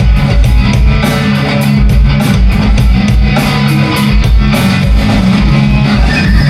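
Distorted electric guitar and drum kit playing a heavy rock riff together at soundcheck, with heavy kick drum hits.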